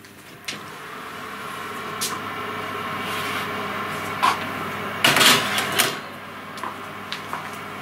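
Oven door opened and a metal baking tray pushed onto the oven's wire shelf, a few knocks and then a loud scrape and clatter of metal on metal about five seconds in, over a steady rushing noise.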